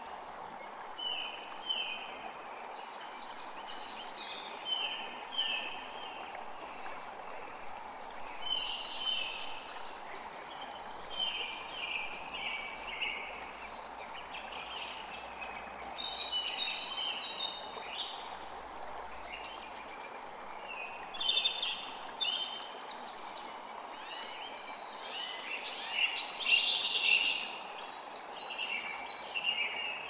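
Small songbirds singing and twittering in bursts of quick, short chirps, over a steady background hiss.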